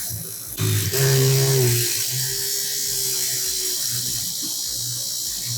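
Homemade 12 V DC-motor mini drill running with a steady high whine as its bit works into thin veroboard, getting louder about half a second in. It drills, but not smoothly.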